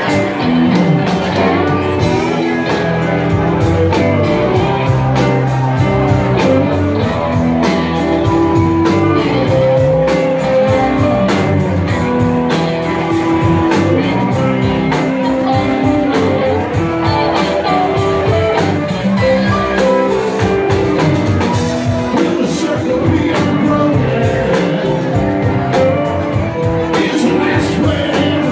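A live rock band playing, electric guitars over a drum kit with a steady beat.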